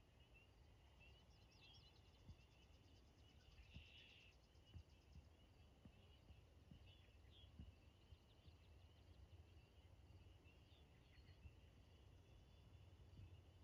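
Faint dusk chorus of distant frogs and birds: a steady band of high chirping with scattered short calls, and a fast, even trill in the first few seconds, over a low rumble.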